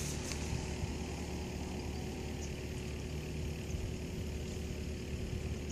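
Steady low hum of an idling engine, with one constant tone running through it.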